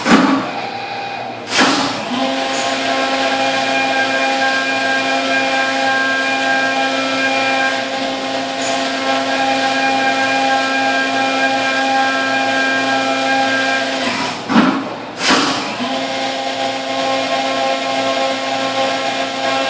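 Brother TC-S2Dn-O CNC mill's spindle driving a small three-flute carbide end mill through 6061 aluminum under flood coolant. A steady, several-toned whine of the cut sits over the hiss of the coolant spray. Brief loud noisy bursts come near the start and about three-quarters through, where the cutting tone drops out for a moment and then resumes.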